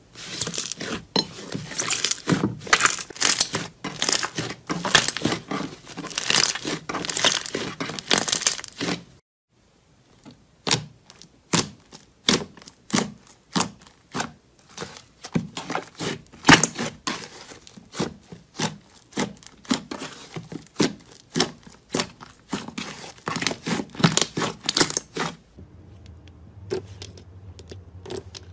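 Hands pressing and kneading thick slime, with dense crackling and popping; after a brief silence about nine seconds in, a second slime is stretched and pressed with separate pops about two a second. Near the end the pops give way to a quieter stretch with a low hum.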